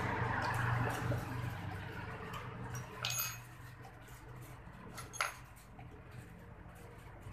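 A few sharp metallic clinks of a wrench on a motorcycle muffler's mounting bracket, about three seconds in and again a little after five seconds, the second the loudest. A low engine hum underneath fades away over the first few seconds.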